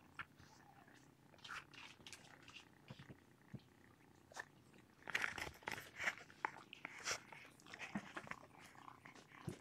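A domestic cat purring softly, with scattered small clicks and rustles on top.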